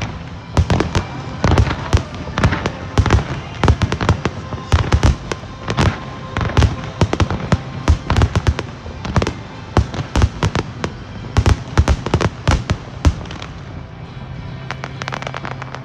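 Finale of a fireworks display: shells bursting in a rapid, near-continuous barrage of loud bangs and crackles, thinning out about thirteen seconds in.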